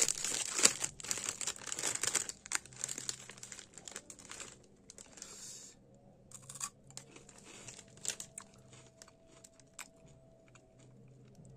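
A foil snack packet of Flamin' Hot Cheetos crinkling as it is handled, dense for the first two and a half seconds or so. Then come sparse, quieter crunches as the puffs are bitten and chewed.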